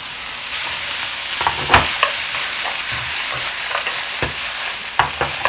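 Diced vegetables sizzling as they stir-fry in a frying pan. A wooden spatula stirs and tosses them, knocking sharply against the pan several times.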